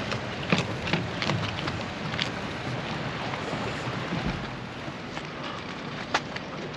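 Footsteps and a pushed bicycle on a metal dock gangway: a few sharp clicks and knocks, most in the first couple of seconds and one more near the end, over a steady rush of wind noise.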